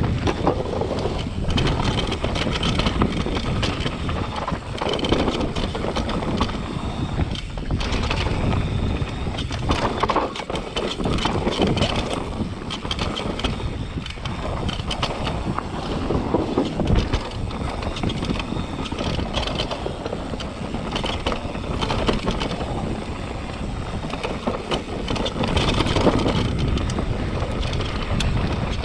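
Mountain bike descending a rough dirt trail at speed: steady tyre rumble on the ground with frequent knocks and rattles from the bike over bumps, and wind buffeting the microphone.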